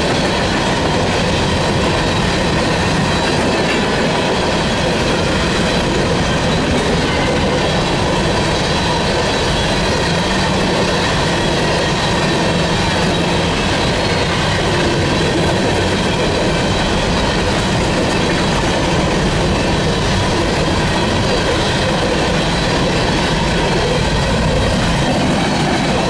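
Freight train cars rolling past close by, wheels clattering and rumbling on the rails in a loud, steady, unbroken stream.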